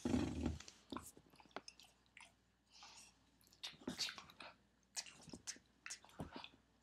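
Dalmatian chewing and biting at a feathered cat toy: irregular, scattered crunching clicks, with a muffled bump near the start.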